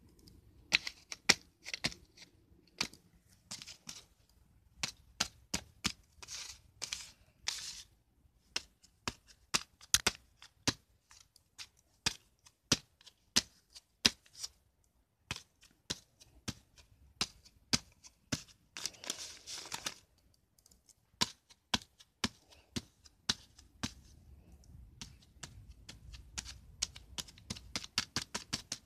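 Lined notebook paper being torn apart by hand: many sharp rips and crackles, with a few longer tearing sounds.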